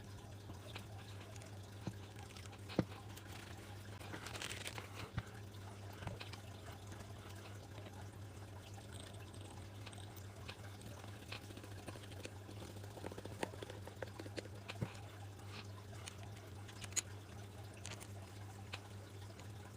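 Scattered light clicks, taps and a brief rustle of small parts being handled and fitted while a motorcycle clutch master cylinder is reassembled by hand, over a steady low hum.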